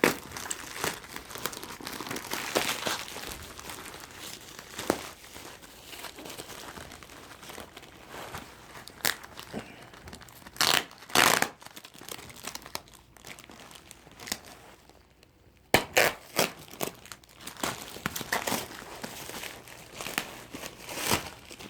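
Packaging of a shipping parcel being worked open by hand: irregular crinkling and rustling, with several sharp, louder rips and snaps along the way.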